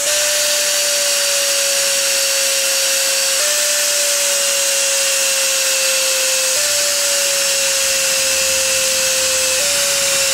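Fujiyama electric angle grinder running, its disc grinding down a metal valve spring retainer with a hissing scrape under a steady high whine. The whine sags slightly in pitch and steps back up three times.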